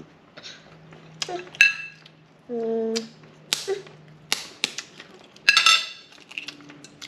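Metal spoon clinking against a plate and tapping the shell of a balut duck egg: a scatter of sharp clicks and clinks, a few of them ringing briefly, the busiest burst a little past halfway. A short hummed "mm" about two and a half seconds in.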